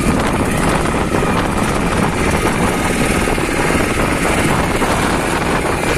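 Motorboat engine running steadily at cruising speed, a loud, fast-pulsing drone, as the wooden boat moves across choppy lake water.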